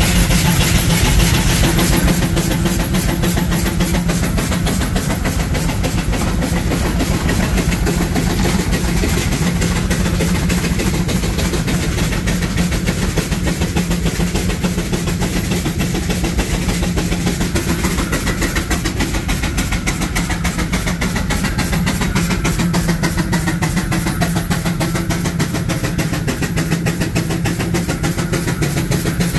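An engine running steadily, with a fast, even beat over a low steady hum.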